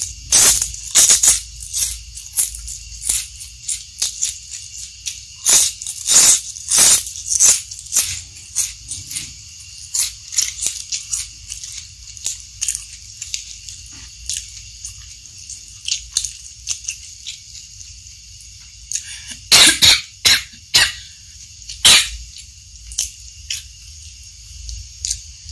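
Close-miked eating sounds: sharp, quick crunches of biting and chewing crisp food, a fried snack and raw lettuce wrapped around rice. They come in rapid runs, densest in the first ten seconds, with another loud cluster about twenty seconds in.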